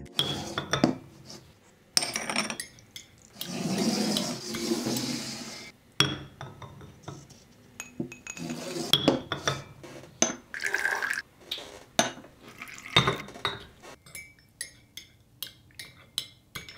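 Porcelain teacup, teapot and saucer clinking as they are handled and set down on a hard stone surface, with tea being poured for a couple of seconds early on. A short ringing note from the china just after the middle, and a run of light, quick clinks near the end.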